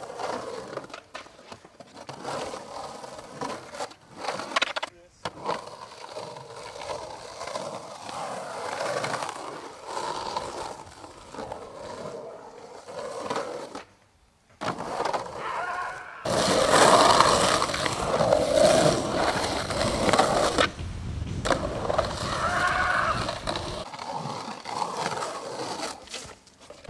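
Skateboard wheels rolling over the concrete of an empty swimming pool, with sharp knocks from the board. The sound breaks off at a few cuts between clips.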